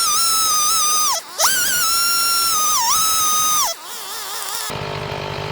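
Background music: a single high, sliding lead melody with held notes and swooping dips, fading to a softer wavering tone. Near the end it cuts abruptly to a chainsaw engine running steadily.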